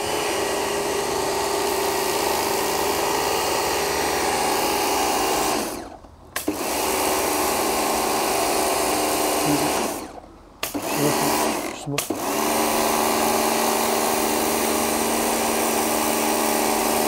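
1400-watt Kärcher K2 electric pressure washer running steadily, its motor and pump driving a dirt blaster lance jet onto concrete slabs. The motor winds down and stops about six seconds in and again around ten seconds, with a short break near twelve seconds, then starts up again each time, as the machine stops when the trigger is released.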